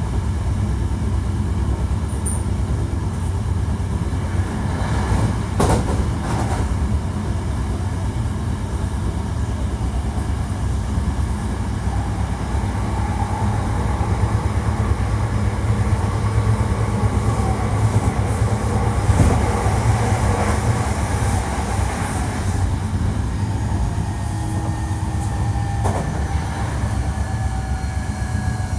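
Hankyu 1300 series electric train running, heard from inside the car: a steady rumble of wheels on rail, a couple of sharp rail-joint clicks, and the whine of its Toyo IGBT inverter-driven traction motors, which slides slightly lower near the end.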